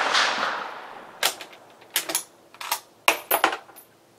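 The reverberating tail of a 6.5x55mm Swedish M96 Mauser rifle shot dying away over the first second, then a run of sharp metallic clicks and clacks as the bolt is worked to open the action and pull out the spent case.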